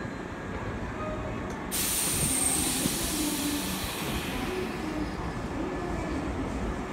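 Hankyu 3300 series electric train standing at a platform: a sudden loud hiss of compressed air about two seconds in, fading over a few seconds as the brakes are released, then a low motor hum that starts to rise in pitch as the train gets under way.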